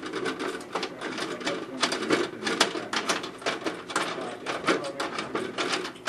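Irregular clicking, knocking and rattling of metal and glass as the top lid of a vintage Master gumball machine is taken off and handled, several clicks a second.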